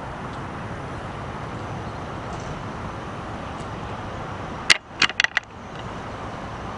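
1968 Ford Mustang's 289 cubic-inch V8 idling steadily. About two-thirds of the way through, a quick run of four sharp clicks is the loudest sound, and the engine sound briefly cuts out around them.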